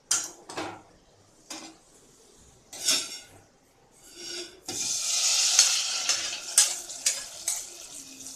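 Metal tongs clanking against a kadai as it is gripped and lifted, with a ringing metal clank. Then hot ghee with roasted cashews is poured onto cooked rice kali in a steel pot and sizzles loudly for about three seconds, with clinks of the spoon scraping and stirring.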